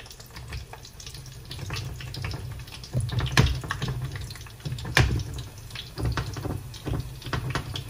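A flatbread of potato-stuffed dough frying in an oiled pan: a steady sizzle, with a few sharp clicks and crackles about three and a half and five seconds in.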